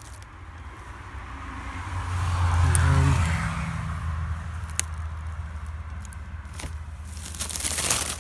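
A low engine hum, most likely a passing motor vehicle, swells to a peak about three seconds in and fades. A few light clicks follow, and papery crackling and rustling starts near the end.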